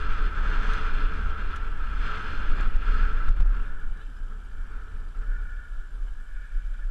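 Wind buffeting a helmet-mounted camera's microphone, with tyre noise from a mountain bike rolling down a gravel trail. It eases off after about three and a half seconds as the bike slows onto smooth tarmac.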